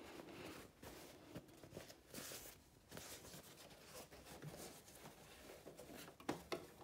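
Faint rustling of fabric being handled and slid into place under a sewing machine's presser foot, with a few soft clicks; the machine is not running.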